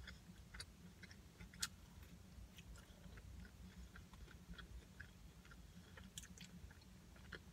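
Faint chewing of French fries, with small mouth clicks scattered throughout and one sharper click about a second and a half in, over a low steady hum.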